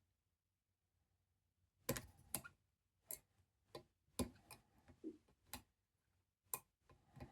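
Faint, irregular metallic clicks and taps of a lever pick and tension wrench working the small levers inside a Chubb 7-lever till lock. The clicks start about two seconds in and come roughly once or twice a second.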